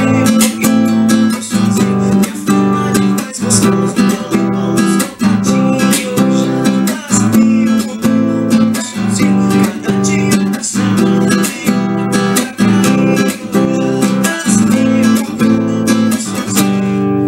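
Acoustic nylon-string guitar strummed in a steady, driving chord rhythm, with sharp percussive muted strokes falling regularly between the ringing chords.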